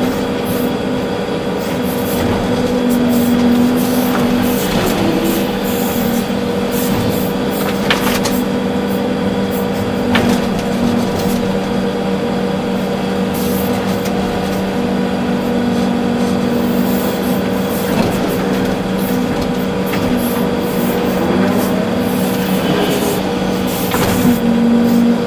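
Volvo EC380D excavator heard from inside its cab: the diesel engine runs steadily under working load, and its pitch shifts now and then as the hydraulics take up and release load. A few sharp knocks sound through it.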